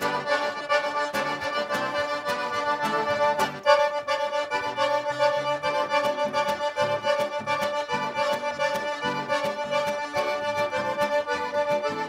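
Several piano accordions play an instrumental intro: long held chords over a bouncing bass line, in a steady dance rhythm.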